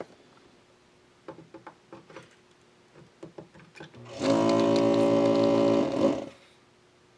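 Desoldering gun's vacuum pump buzzing steadily for about two seconds, sucking solder from a capacitor's leads, after a few light clicks of the tool on the board.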